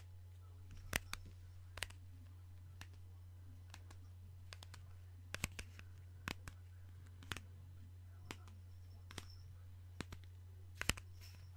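Close-miked gum chewing: sharp, irregular mouth clicks and snaps, roughly one a second, over a steady low hum.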